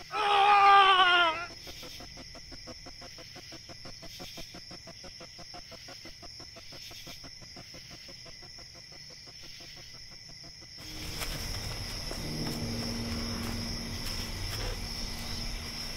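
A high, wavering scream lasting about a second and a half, the loudest sound. It is followed by a faint, fast, even pulsing for about nine seconds, then a steadier, fuller background, with a steady high-pitched insect chirring throughout.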